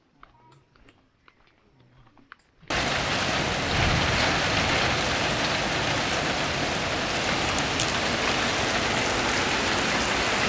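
Heavy rain pouring down in a steady, dense hiss, cutting in abruptly about three seconds in; before that only faint scattered clicks.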